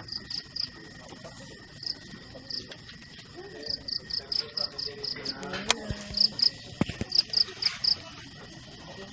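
Crickets chirping: runs of short high-pitched pulses, about five a second, over a steady high insect trill. A few sharp knocks come about two-thirds of the way through.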